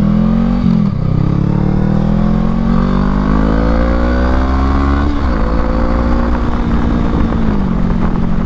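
Honda Rebel 500's parallel-twin engine pulling through the gears, its revs climbing and then dropping sharply at upshifts about a second in and about five seconds in, easing off slightly near the end. Steady wind rumble on the microphone runs underneath.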